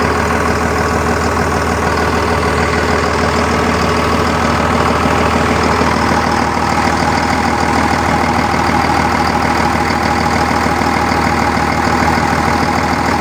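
Volvo EC210 excavator's diesel engine running steadily at idle, its low hum and tones unbroken.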